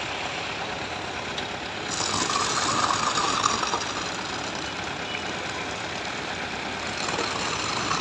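An engine running steadily, swelling louder for a second or two about two seconds in.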